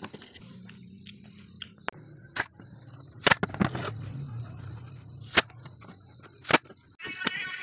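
Pneumatic brad nailer firing into a pine box frame: a few sharp, separate shots among light knocks of wood being handled, over a faint low hum. Music comes in near the end.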